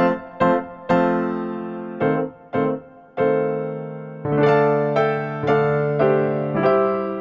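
Background music on an electric piano: struck notes and chords, each fading away, roughly two a second.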